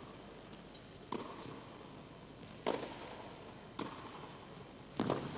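Tennis ball struck back and forth with rackets in a rally: four sharp pops, roughly one every second and a quarter.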